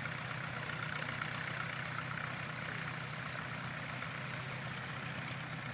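Standard Fordson tractor's four-cylinder engine running steadily.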